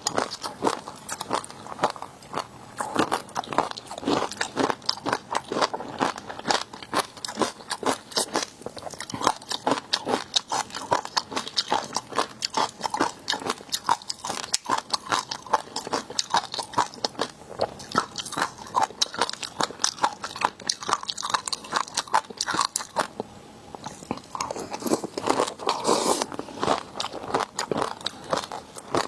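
Close-miked eating of seafood: steady crunching bites and chewing, a dense run of sharp crunches and clicks several times a second.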